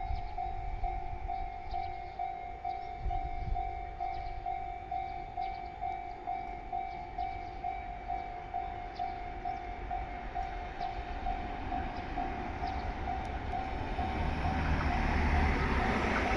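Japanese level-crossing warning bell ringing in an even, repeating electronic clang. Near the end an electric train's rumble grows loud as it comes through the crossing.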